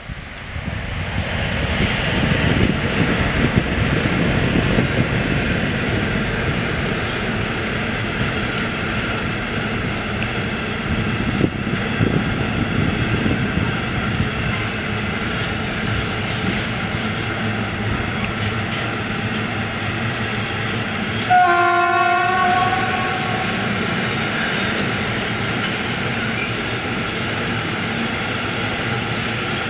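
Container freight train hauled by an electric locomotive running past, a steady rumble of wagons on the rails. About two-thirds of the way through, a train horn sounds once for about a second.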